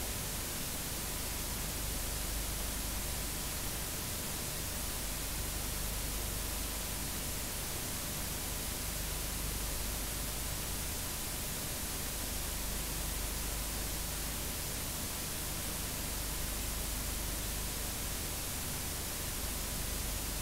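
Steady static hiss from an unrecorded stretch of analog videotape, with a faint steady tone and a low hum beneath it.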